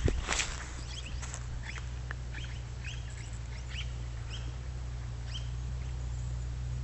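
Wild birds calling in the bush: a dozen or so short, high chirps, a few a second, over a steady low hum. A couple of thuds right at the start.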